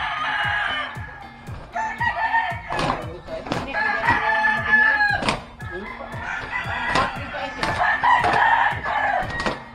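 Roosters crowing repeatedly, several drawn-out calls one after another.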